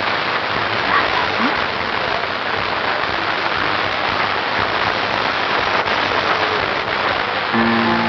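Steady rain, an even dense hiss. Near the end, music comes in with held notes.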